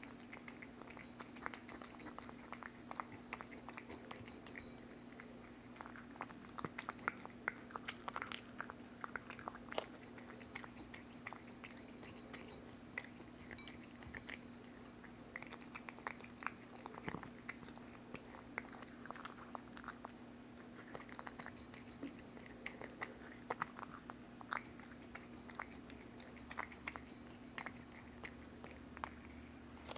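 Cat eating wet cat food from a ceramic dish: a steady run of small, quick licking and chewing clicks and smacks.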